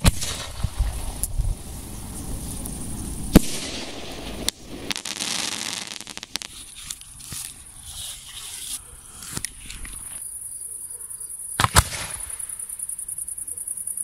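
Black powder flaring with a hiss and a few sharp cracks. After a quieter stretch, a single loud bang about three quarters of the way through: a firework shell's lift charge firing from a paper mortar tube.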